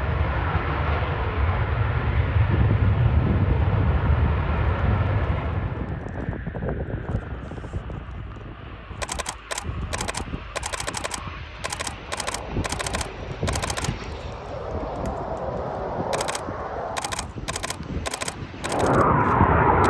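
Jet noise from a Eurofighter Typhoon fades away over the first few seconds. Through the middle come runs of rapid clicks from a DSLR camera shutter firing in burst. Near the end loud jet noise starts again abruptly.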